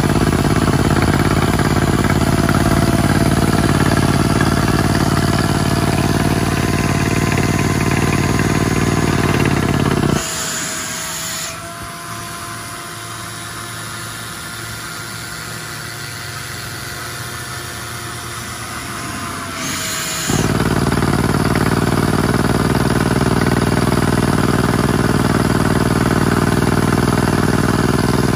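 Epiroc LM 100 pneumatic crawler drill rig drilling rock, its rock drill hammering loudly with a rush of air. About ten seconds in, a short hiss of air sounds and the hammering stops, leaving a quieter steady hum. After about ten more seconds a second hiss sounds and the loud drilling starts again.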